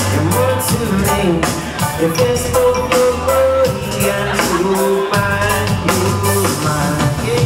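Live reggae band playing: a male lead voice sings a melody over electric guitars, held bass notes and a drum kit keeping a steady beat.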